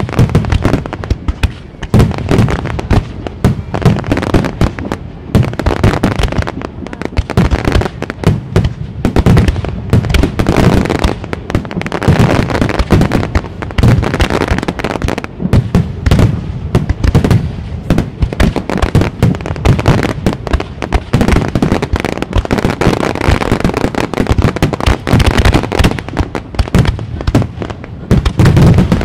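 Japanese aerial firework shells bursting in rapid succession: a dense, continuous barrage of booms with crackling in between, with no real pause.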